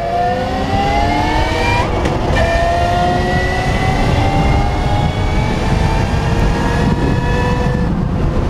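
Electric motorcycle's motor and gearbox whining under hard acceleration, the pitch rising with speed. The whine breaks off about two seconds in at a gear change, picks up again lower and climbs more slowly, then eases off near the end. Wind rushes over the microphone throughout.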